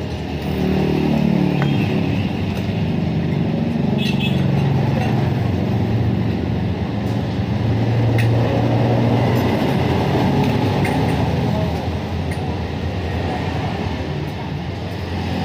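A motor vehicle engine running, its pitch falling over the first couple of seconds and then holding fairly steady, with a few sharp clicks of tin snips cutting thin metal strip.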